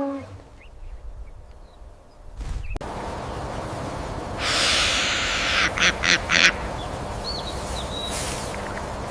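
Outdoor recording with a short rush of noise, then four quick, harsh bird calls in a row and a faint high chirp.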